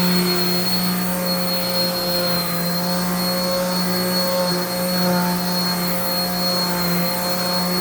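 Electric sander running steadily against a guitar body's cured epoxy pour-fill coat, a constant motor hum with a thin high whine over it.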